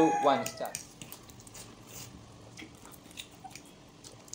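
Faint chewing and slurping of chowmein noodles eaten fast, with scattered small clicks and smacks. A brief voice sound is heard in the first second before it.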